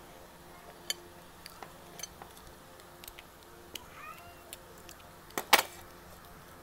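Snow crab shell being cracked in a hand-held crab cracker: scattered small clicks and snaps, with the loudest crack about five and a half seconds in.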